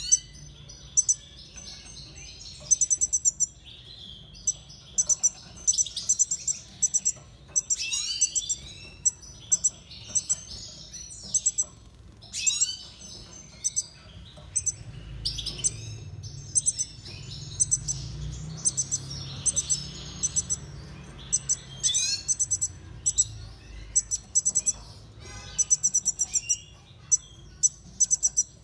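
Small cage finches chirping and twittering in quick, high-pitched bursts, again and again, with a faint low hum rising in the middle stretch.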